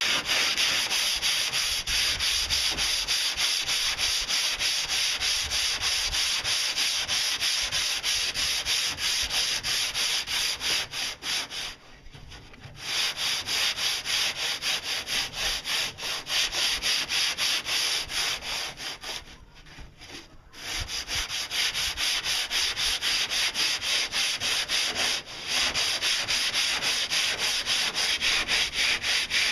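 Hand sanding of a cured fiberglass boat hull: sandpaper on a sanding block rasping in rapid back-and-forth strokes, with two short pauses partway through.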